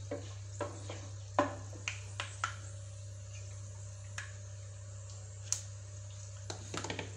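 Whole spices heating in oil in a nonstick pan: a faint sizzle with scattered sharp pops, and a few knocks of a wooden spatula against the pan in the first couple of seconds, over a steady low hum.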